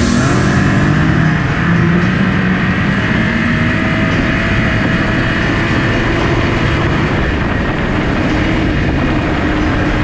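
Snowmobile engine running under way, its pitch rising and falling a little as the throttle changes.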